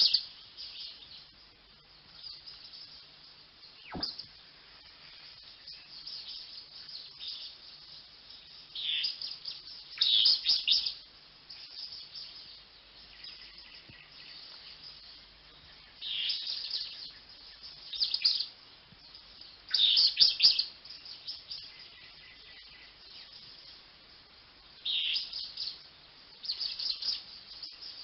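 Finches singing: short bursts of high, quick song about a second long, repeated every few seconds, with fainter twittering between them.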